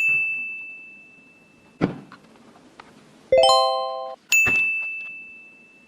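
A bright bell-like ding that rings out and fades over about two seconds, a single knock, then a short flat buzzing tone that starts and stops abruptly, followed by a second identical ding fading away.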